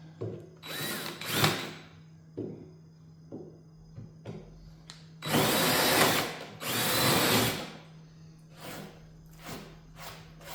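Power drill running in short bursts into wood, with two longer runs of about a second each in the middle and a few brief pulses near the end: drilling countersink holes for screws.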